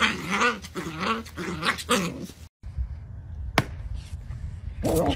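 Small white dog held up under its front legs making a string of wavering growling whines, the 'gremlin mode' noise it makes when picked up this way. After about two and a half seconds it cuts off, leaving a low rumbling background with a single sharp click.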